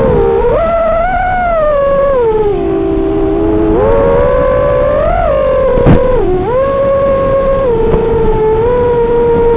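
FPV racing quadcopter's motors whining, the pitch rising and falling as the throttle changes. A single sharp knock comes just before six seconds in.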